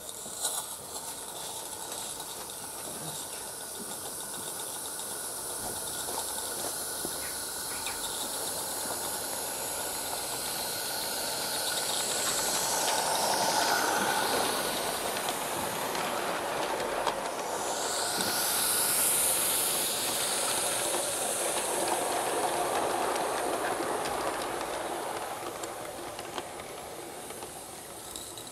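Small live-steam garden-scale locomotive hauling a train of wagons past, with steady steam hissing and wheels running on the track, growing louder in the middle as it goes by and fading as it moves away.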